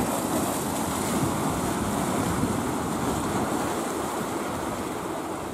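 Steady rush of sea waves, with wind buffeting the microphone.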